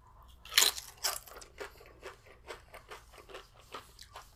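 Biting into a crisp tortilla chip, with a loud crunch about half a second in and another just after, followed by steady crunchy chewing at about three to four crunches a second.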